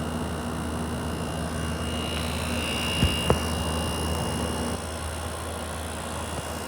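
Frigidaire 8,000 BTU heat pump air conditioner running in cooling mode: a steady hum of compressor and fan with air rushing through. Two light knocks about three seconds in, and the hum drops slightly a little before five seconds.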